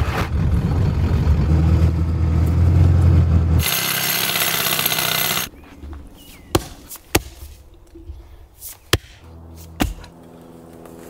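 Ford F-350 pickup's 7.3 Powerstroke diesel running with tyre noise as it drives down a gravel road, then a burst of hiss. After the hiss a series of sharp, separate blows of an axe chopping into a tree stump, about four clear strikes.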